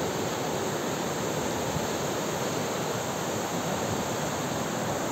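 Fast mountain river rushing through rapids over boulders: a steady, even rush of whitewater.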